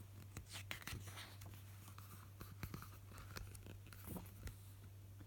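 Faint rustling and scattered small clicks of paper being handled, over a steady low hum.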